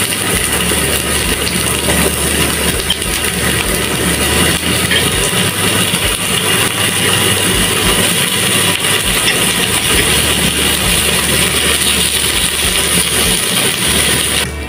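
Chicken wings sizzling in hot oil in a nonstick frying pan as they are laid in with metal tongs: a steady, loud frying hiss that stops abruptly near the end.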